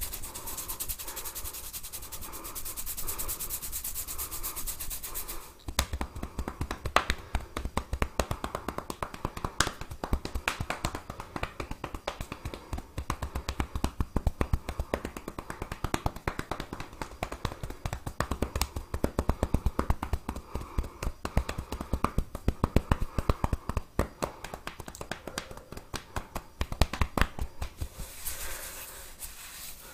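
Hands massaging a head: a steady rubbing through hair and scalp, then, about five seconds in, a long run of quick light taps, several a second, which gives way to rubbing again near the end.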